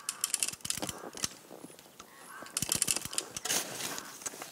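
Rapid metallic clicking and rattling as a ratchet tensioner on a steel cable line is worked, in several short bursts.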